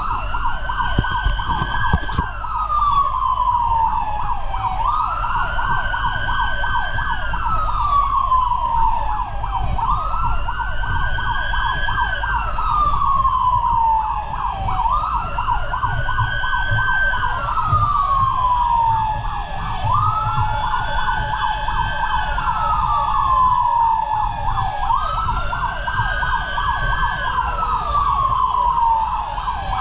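Fire truck siren wailing in repeated cycles about every five seconds, each one rising quickly, holding, then falling slowly, over a fast pulsing and the low rumble of the moving truck.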